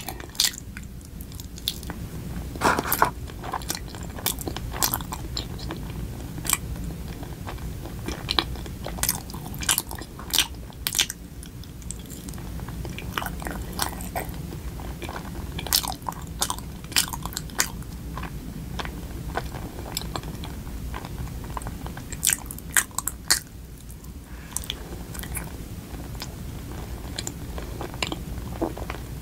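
Close-up chewing and biting of a chewy Korean rice cake (tteok), with many short, sharp wet mouth clicks and smacks scattered through, over a low steady hum.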